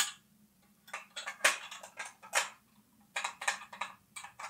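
Small sheet-metal parts of a model rock bucket kit clicking and clinking against each other as they are handled: one sharp click at the start, then a string of light metal clicks over the following few seconds.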